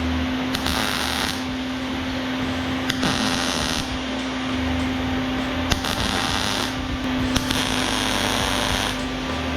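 Wire-feed welder laying short welds on a steel box: several bursts of crackling arc, each about a second long, over a steady hum.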